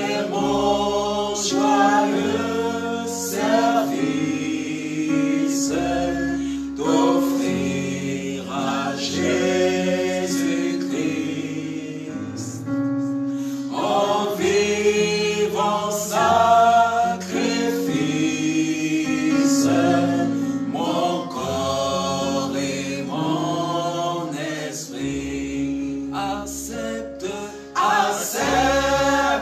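A church congregation sings a gospel worship song in chorus over instrumental backing with long held low notes, while hands clap.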